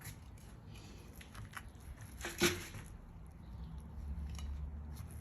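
Fillet knife working through a rainbow trout's rib bones: small crackling clicks, with one louder crunch about halfway through. A low steady hum comes in during the second half.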